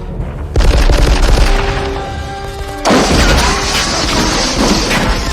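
Bursts of automatic gunfire, with loud hits starting about half a second in and again near three seconds in, over a dramatic film score.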